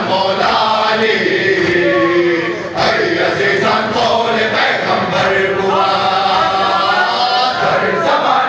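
Men chanting a noha, a Shia lament, in unison with the crowd in a large hall, with the slaps of matam chest-beating running through it.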